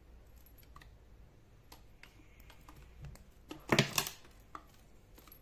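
Small clicks and light clinks of a stainless steel watch and its mesh band being handled and turned in the hand, with one brief louder rattle about two-thirds of the way through.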